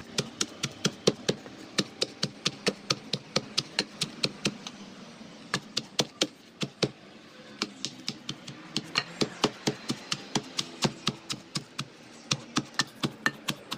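Wooden pestle pounding cassava leaves and spices in a small wooden mortar: a steady run of knocks, about three a second, broken by a couple of short pauses. The leaves are being crushed coarsely, not to a fine paste.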